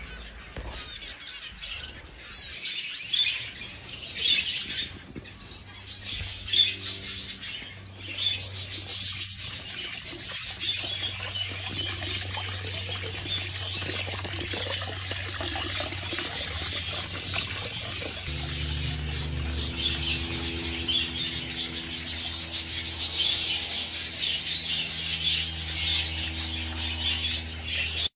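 Many small caged birds chirping and chattering continuously, typical of a budgerigar and canary aviary. A steady low hum joins about two-thirds of the way through.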